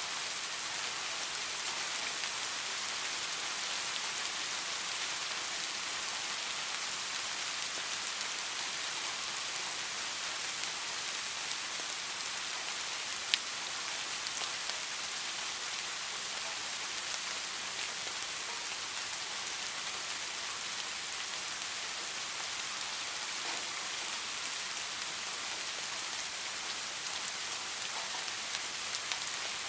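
Steady rain falling: a dense, even hiss with scattered drop ticks and one sharp tick about halfway through.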